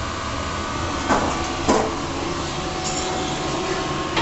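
Elevator car travelling non-stop in express mode, a steady low rumble and hum from the moving cab, with two short knocks a little over a second in.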